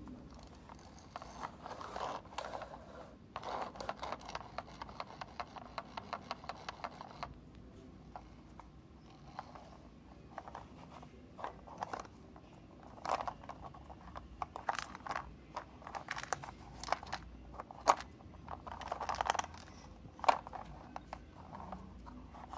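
A plastic toy tractor-trailer handled and moved over a carpet: scraping and rustling, with a run of fast clicking for a few seconds and scattered sharp knocks later, the loudest near the end.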